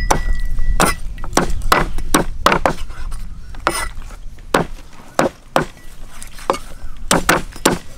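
Meat cleavers chopping raw chicken on round wooden chopping blocks: a run of sharp, irregular chops, roughly two a second, from more than one cleaver at once.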